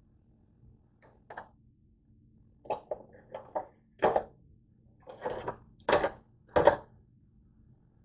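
Dishes knocking and clattering in a dish drying rack as a hand pulls items out of it. There are about ten short knocks, and the loudest come around four, six and six and a half seconds in.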